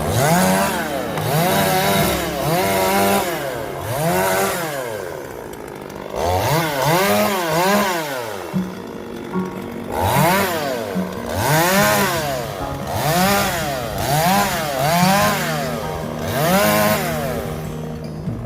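Chainsaw revving up and down again and again, about once a second, as it cuts through the trunk of a fallen walnut tree, with a short lull about halfway through.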